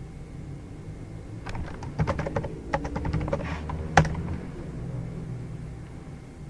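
Typing on a computer keyboard: a quick run of keystrokes lasting about two and a half seconds, ending with one louder key press.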